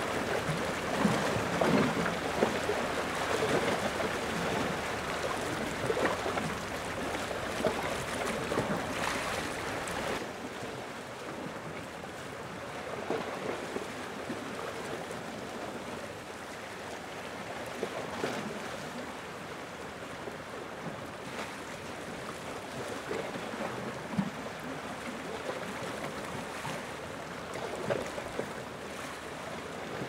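Gentle ocean waves washing and lapping on the shore: a steady wash of water with small splashes. It is louder for the first ten seconds or so, then settles to a softer wash.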